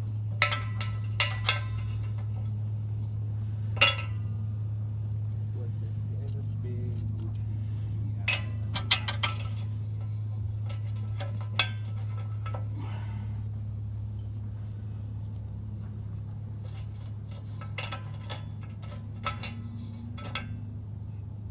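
Scattered light metallic clinks and clicks from hand tools and exhaust hardware being handled, with the loudest near the start and around the middle. A steady low hum continues underneath.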